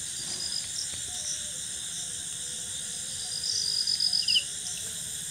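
Crickets and other night insects trilling: runs of a rapid high-pitched pulsed chirp lasting about a second each over a steady high insect hiss, with a couple of short faint chirps near the end.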